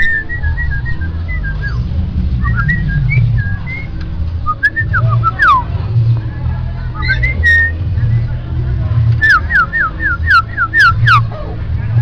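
Common myna whistling: a run of short notes near the start, scattered calls through the middle, then a quick series of about seven falling whistles near the end, over a steady low rumble.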